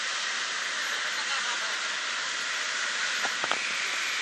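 Steady rushing noise aboard a moving ferry, wind and water wash going past, with a few faint clicks about three and a half seconds in.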